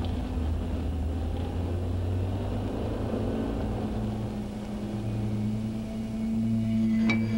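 Steady low, engine-like rumble with a wash of noise, as of a passing vehicle. A held low musical note comes in about halfway, and further notes enter near the end.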